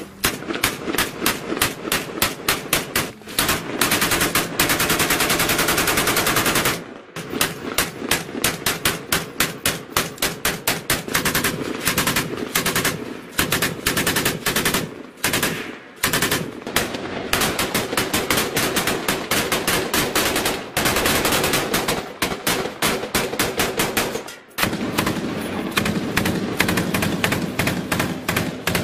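Automatic rifle and machine-gun fire: long bursts of rapid shots, broken by brief pauses about 7, 16 and 24 seconds in.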